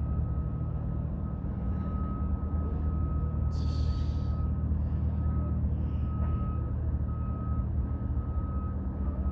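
Steady low engine hum with a repeating high-pitched beep over it, like a reversing alarm. There is a short hiss about three and a half seconds in.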